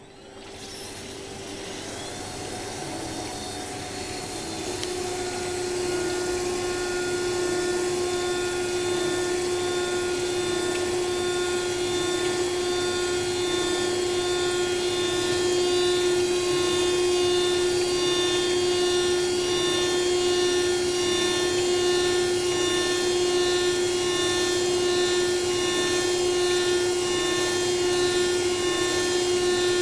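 Glass CNC milling machine's spindle running with a steady whine while its tool mills thick glass under a water coolant spray, with a hiss beneath. The sound builds over the first several seconds, then holds steady.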